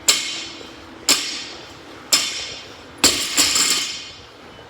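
Barbell clanking down on the floor with each rep, about once a second, four times, each strike ringing briefly with a metallic clang; the last is followed by a second clatter as the bar settles.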